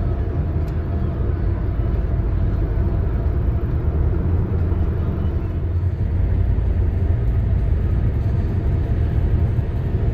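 A car driving along the road: a steady low rumble of road and engine noise.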